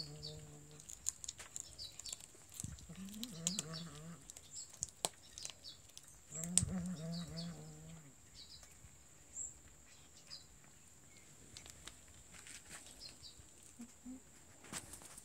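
Low, drawn-out animal calls, three times, each about a second long and stepping down in pitch. Short high chirps and scattered clicks come in between.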